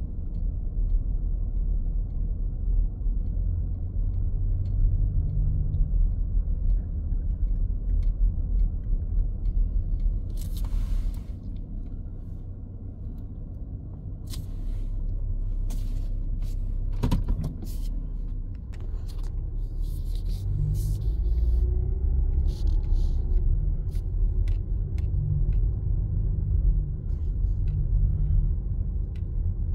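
Steady low rumble of a car's engine and tyres heard from inside the cabin as it drives slowly, with a few scattered clicks and taps near the middle.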